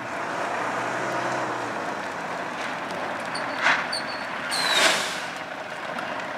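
A Mercedes-Benz fire truck and a fire-service van driving in over dusty ground with their engines running. Two short hissing bursts come about three and a half and about five seconds in; the second is the louder.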